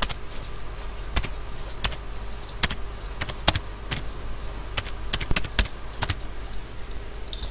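Computer keyboard keys pressed one at a time, slow uneven clicks about one or two a second, over a steady low hum.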